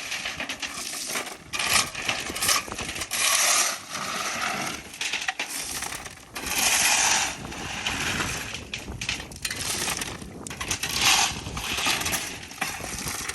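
River rock being moved: stones clattering and grinding against each other in a run of irregular bursts, some lasting about a second.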